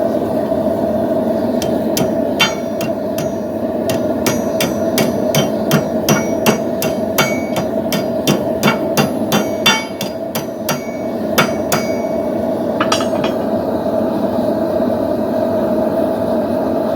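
Blacksmith's hammer striking hot steel on an anvil, a run of quick blows, a couple a second, from about two seconds in until about twelve seconds, with a few more just after. Under it the steady roar of a running gas forge.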